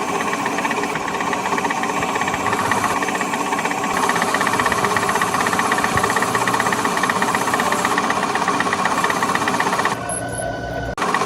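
Workshop machinery running steadily with a fast, even rattle, broken by a few abrupt changes in sound near the end.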